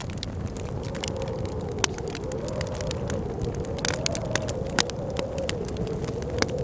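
Wood fire in a fireplace crackling with frequent sharp pops, over blizzard wind that howls with a whistle wavering up and down in pitch and a low rumble beneath.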